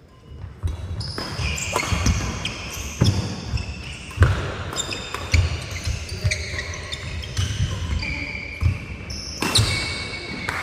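Badminton doubles rally: sharp racket strikes on the shuttlecock about once a second, with shoes squeaking and feet thudding on the wooden court floor.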